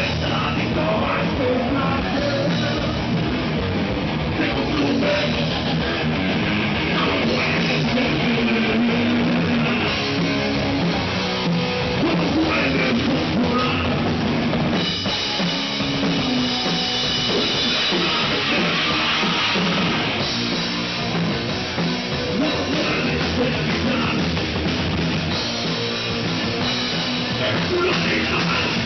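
Live rock band playing an instrumental passage: a drum kit with bass drum and cymbals, heard close, under electric guitar. The cymbals grow brighter about halfway through.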